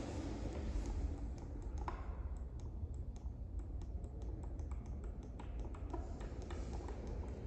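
Otis elevator hall call button pressed over and over, a run of quick, sharp clicks, several a second. A steady low hum runs underneath.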